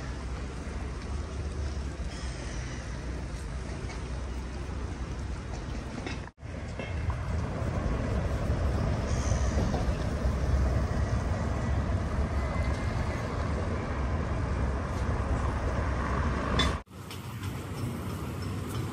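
Outdoor street ambience: a steady low rumble and wash of noise, cut off abruptly twice, about six seconds in and near the end.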